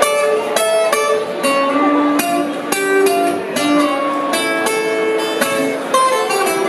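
Acoustic guitar played solo, chords strummed in a steady rhythm of about two to three strokes a second: the instrumental intro to a song, before any singing.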